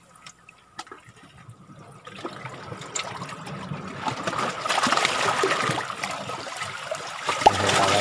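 Seawater sloshing and trickling among shoreline rocks, building up about two seconds in and loudest in the second half, with a few faint clicks early on.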